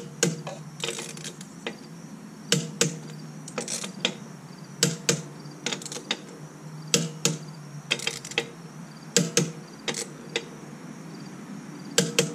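Click-type torque wrench tightening the trailer wheel's lug nuts to 100 foot-pounds: a series of sharp metallic clicks, often in close pairs, about a second or two apart, as each pull reaches the set torque.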